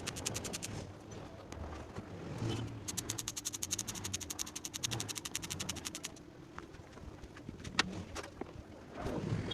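Ratchet wrench clicking in quick, even runs of about a dozen clicks a second, with a pause in the middle and a few separate knocks near the end.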